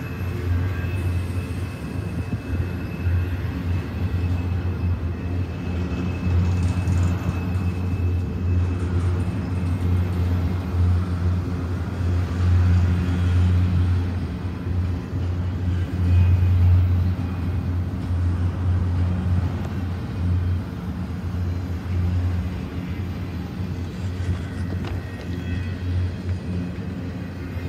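Double-stack container train's well cars rolling past close by: a steady, heavy rumble of steel wheels on rail.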